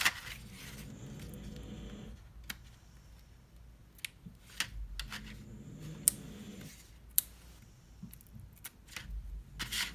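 Cardstock being folded and creased by hand on a cutting mat: scattered crisp clicks, taps and rustles of stiff paper.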